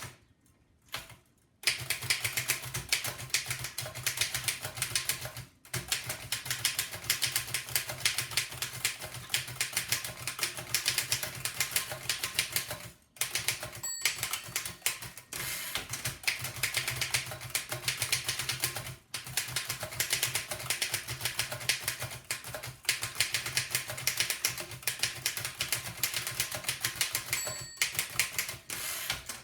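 1905 Fox No. 3 upstrike typewriter being typed on fast: a rapid, continuous clatter of keystrokes that starts about a second and a half in, with a few brief pauses. A short ring sounds twice, about halfway and near the end.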